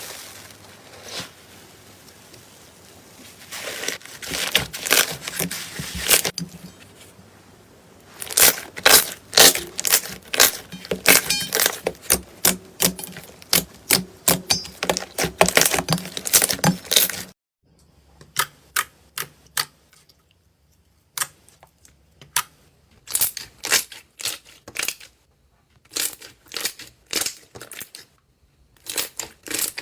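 Slime being squeezed and poked by hand, making rapid sticky popping and crackling clicks. About two-thirds through the sound cuts off suddenly, and the clicks that follow are sparser and quieter.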